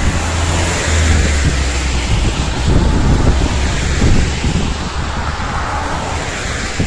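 Road traffic driving past close by on a wet road: an Iveco flatbed truck's engine hum and tyre hiss at first, then cars' tyres swishing on the wet asphalt, with wind buffeting the microphone.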